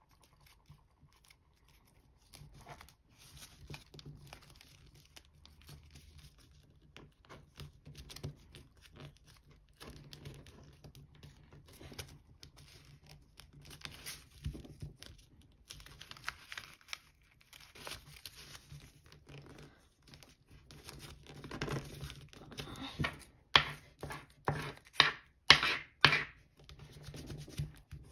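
Thick gold foil origami paper crinkling and crackling as it is folded and creased by hand. There are irregular rustles throughout and a run of louder, sharp crackles over the last several seconds.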